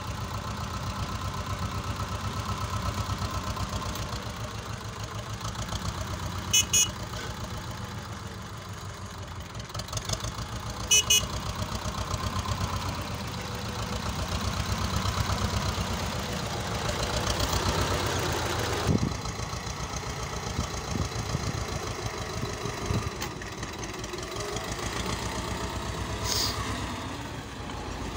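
Vladimirets T-25 tractor's two-cylinder air-cooled diesel running at idle with a steady, even knock. There are short, sharp clicks twice in the first half.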